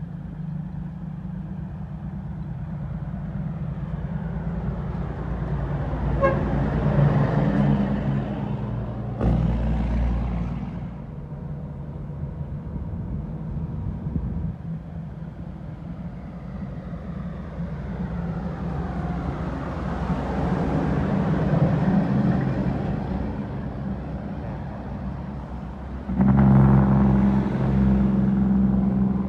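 Heavy diesel dump trucks driving past one after another, each engine swelling and fading as it goes by. There is a short horn toot about six seconds in and a thud about nine seconds in. The traffic grows louder near the end.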